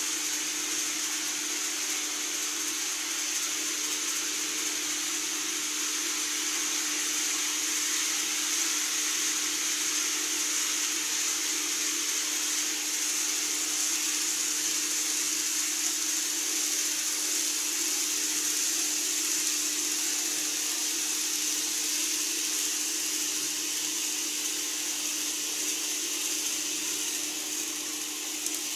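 N-scale model train running on the layout: a steady whirring hiss with a low hum underneath, unchanging throughout.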